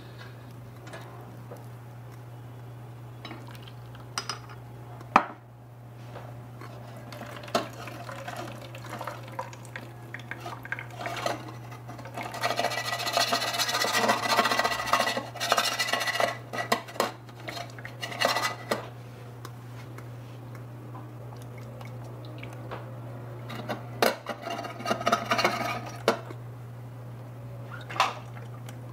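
A tiny stainless steel saucepan clinks as it is lifted. About halfway through, pasta and its cooking water are poured into a small metal colander in a sink, splashing and draining. Clatter from the colander being handled follows, over a steady low hum.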